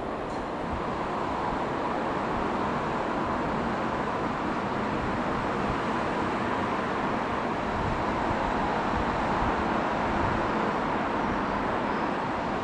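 Irish Rail 22000 Class diesel multiple unit pulling away: a steady hum of its underfloor diesel engines and wheels on the rails.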